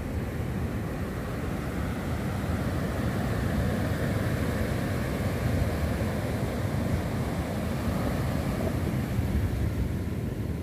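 Ocean surf breaking and washing up a sandy beach, a steady rush of waves that swells a little in the middle, with wind rumbling on the microphone.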